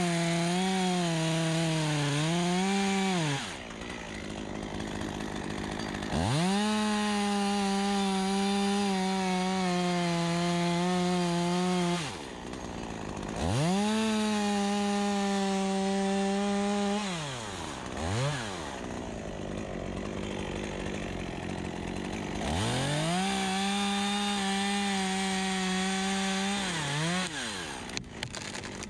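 Stihl two-stroke chainsaw run up to full throttle and held steady through four cuts into black poplar wood, each lasting a few seconds. It drops back to idle between cuts, with one short throttle blip in the middle.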